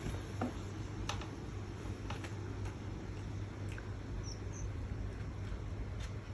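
A small finch bathing in a shallow saucer of water: light splashes and short sharp flicks at irregular moments, with two faint high cheeps about four seconds in, over a steady low hum.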